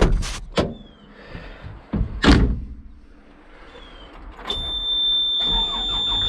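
Excavator cab door clunking and latching, with knocks and thumps as someone climbs into the cab, the loudest about two seconds in. About four and a half seconds in, a steady high electronic tone sounds in the cab over a low, steady hum as the machine is powered up.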